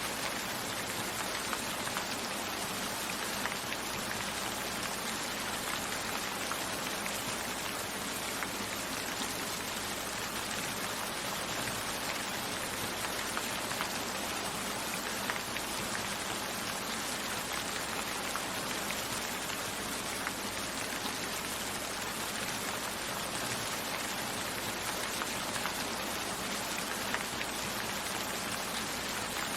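Steady rain falling, a dense even hiss with faint patter of individual drops.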